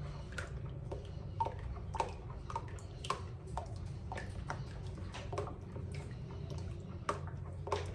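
A ladle stirring frying oil into a lye solution in a plastic bowl for soap: wet sloshing with irregular light knocks and clicks about every half second, over a steady low hum.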